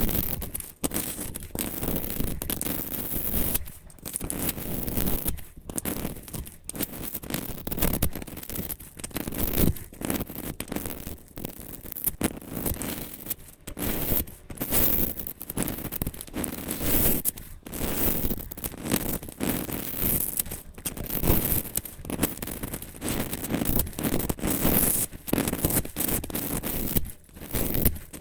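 Dry, crumbly material being crushed and scraped by hand in soap-crushing ASMR: a long run of irregular scratching, crunching strokes with brief pauses between them.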